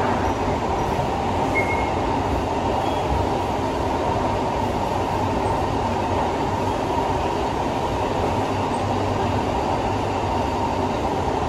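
Interior running noise of a Siemens C651 metro train car: a steady rumble and rush from the wheels and running gear as the train travels at an even speed.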